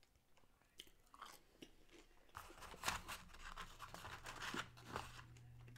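Faint close-up chewing of a fry dipped in chocolate Frosty, then a cardboard fries carton being handled, a run of crackles and taps from about two and a half seconds in.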